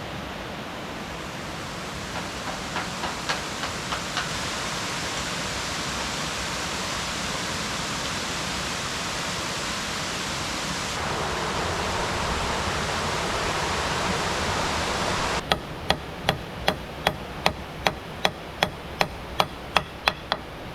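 Steady rushing water with a few light knocks about two to four seconds in. Near the end the water sound drops away abruptly and a run of sharp, evenly spaced knocks follows, about two and a half a second.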